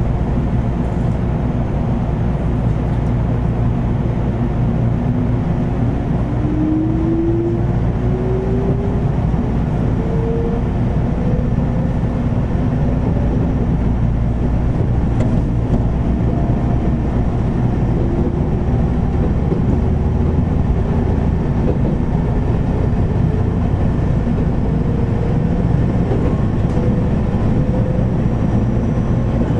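Running sound of a JR 413 series electric train, heard from the KuMoHa 413 motor car: steady wheel-and-rail rumble with a loud air-conditioning hum, and traction motor whine that rises slowly in pitch as the train gathers speed.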